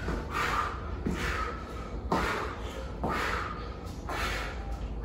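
A man breathing hard and forcefully during a fast exercise drill, with hoarse exhalations about once a second. Faint shoe steps on a wooden floor come with them as he shuffles side to side.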